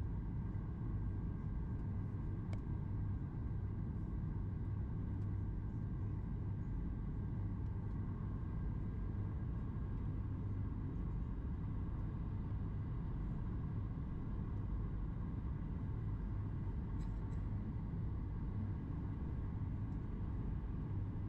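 Steady cabin noise inside a Boeing 737 MAX 8 airliner: a constant low rumble of its CFM LEAP-1B jet engines and airflow, with a faint steady hum above it.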